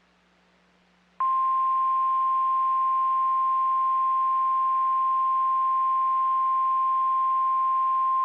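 NOAA Weather Radio 1050 Hz warning alarm tone: a single steady high-pitched tone that comes on sharply about a second in, after a short stretch of faint hiss, and holds unchanged. It is the alert signal that a warning message is about to be broadcast.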